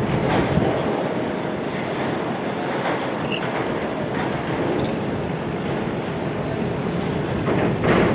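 Steady mechanical rumble and rattling clatter of port machinery and engines, with a brief faint squeal about three seconds in.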